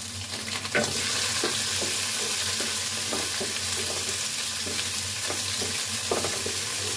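Bell pepper pieces sizzling in hot oil in a frying pan, stirred with a wooden spatula that knocks and scrapes lightly against the pan. The sizzle grows louder about a second in.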